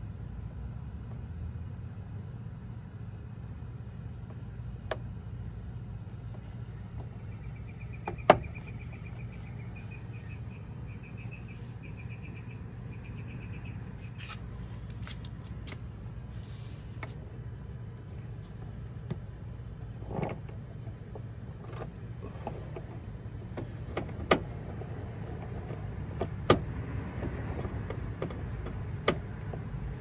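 Sharp single clicks and light knocks, a few seconds apart, as tools and plastic screw-cover caps meet a pickup truck's plastic door trim panel during reassembly, over a steady low hum.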